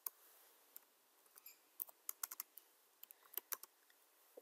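Faint keystrokes on a computer keyboard, typing: a dozen or so short taps in small irregular clusters with pauses between them.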